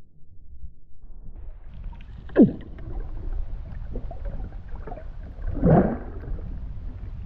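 Water sloshing and splashing against an underwater camera's housing held just below the waves, over a steady low rumble. There are two louder swishes: a quick falling sweep about two and a half seconds in, and a fuller splash near six seconds.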